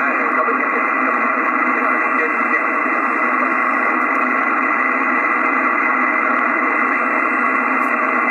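Steady static hiss from an Icom IC-756PROII HF transceiver's speaker, tuned to the 7 MHz band in lower sideband: band noise held within the narrow sideband filter, with no clear voice on the frequency.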